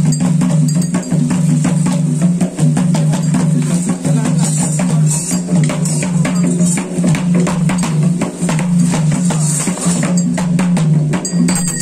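Loud traditional ritual music: dense, fast drumming and jingling metal percussion over a steady low droning tone that steps slightly up and down in pitch.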